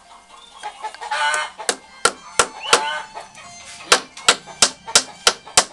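A hammer striking about ten quick blows in two runs, roughly three a second, as the rattan binding on a bamboo joint is finished off. Domestic fowl call twice in the background.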